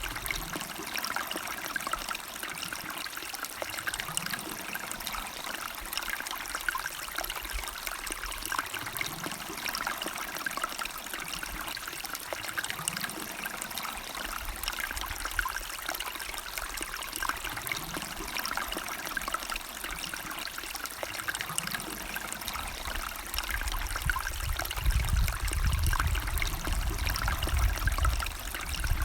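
River water flowing steadily, a continuous rushing and trickling, with a louder low rumble for a few seconds near the end.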